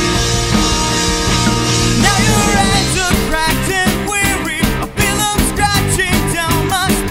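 Recorded punk rock song playing: guitars and bass hold chords, and a singing voice comes in over the band about two seconds in.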